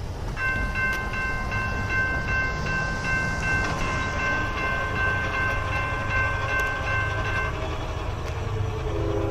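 Railroad grade-crossing bell ringing in rapid repeated strokes over the steady rumble of an approaching freight train. Near the end the lead locomotive's Nathan K5HL horn chord sounds again.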